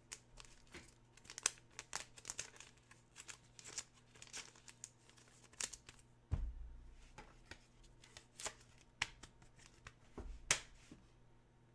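Trading cards and their plastic wrapping being handled: scattered sharp crinkles and rustles, with a dull thump about six seconds in.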